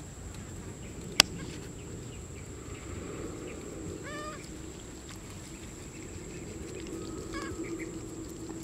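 Steady high insect drone, with one sharp click about a second in and short chirping calls about four seconds in and again near the end.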